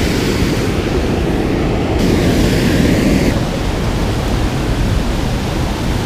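Loud, steady rush of water pouring over a low dam into the creek below.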